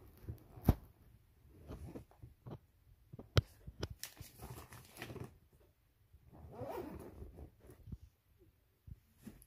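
A fabric school backpack being handled and zipped, with short rasps of the zipper and scattered sharp clicks from the bag and its fittings. The two loudest clicks come near the start and about a third of the way in.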